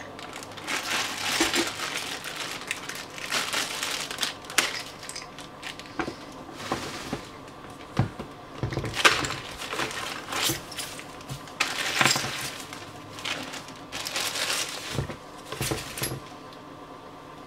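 Plastic packaging crinkling and rustling in irregular bursts as wrapped bidet toilet seat parts and a bagged hose are handled, with scattered clicks and knocks of hard plastic. It stops about a second before the end.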